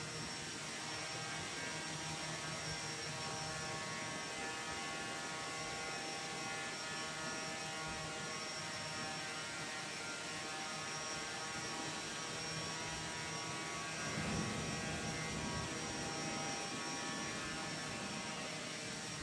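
Small quadcopter's electric motors and propellers humming steadily, several steady tones at once, swelling briefly about 14 seconds in.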